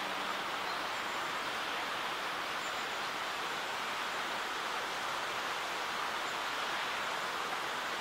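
Nunobiki Falls, a 53 m four-tiered waterfall, heard as a steady, even rush of falling water.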